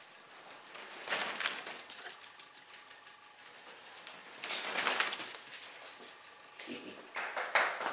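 A Coton de Tulear dog moving through a fabric pop-up play tunnel: the nylon rustles in two brief swells, with scattered light clicks.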